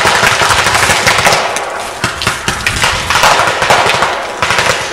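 Paintball markers firing in rapid strings of sharp pops, several guns shooting in quick succession.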